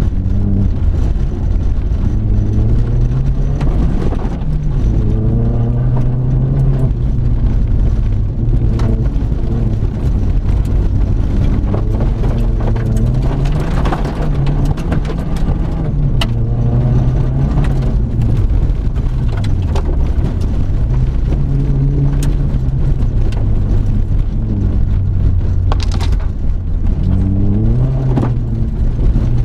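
Seat Ibiza Cupra rally car's engine heard from inside the car, its pitch climbing and dropping again and again through gear changes and lifts as it is driven hard on a gravel stage, with tyre noise and sharp knocks of stones against the car.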